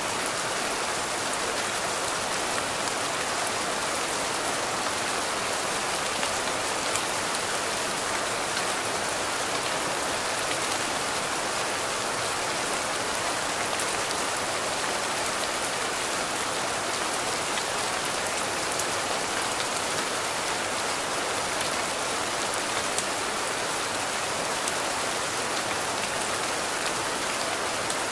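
Steady rain falling: an even hiss with faint scattered drop ticks, unchanging throughout.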